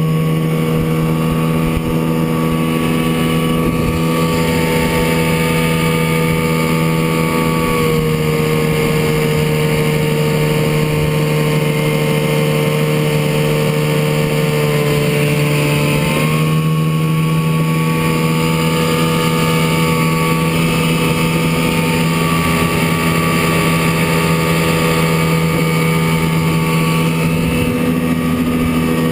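1967 Chrysler 9.2 hp two-stroke outboard motor running steadily at speed, pushing a small boat along. Its pitch sags slightly for several seconds past the middle, then picks back up.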